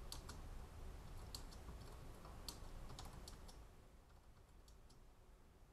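Faint typing on a computer keyboard: short runs of key clicks, thinning out after about three and a half seconds with a few fainter taps near the end.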